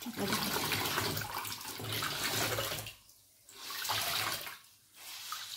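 Water running and splashing in three bursts, the first about three seconds long and two shorter ones after, as something is washed by hand.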